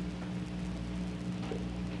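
Steady low hum and hiss: the background noise of an old film soundtrack, with no clear event over it.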